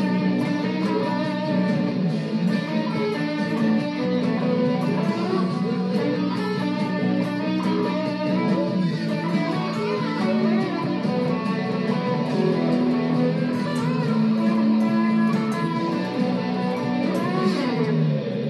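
Stratocaster-style electric guitar played with a pick in a rock song, with a full band sound and a strong bass line behind it.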